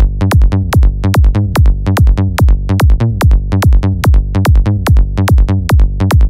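Psytrance music: after a rising noise sweep, a heavy electronic kick drum and rolling bassline drop in right at the start and pound on at a fast, steady tempo.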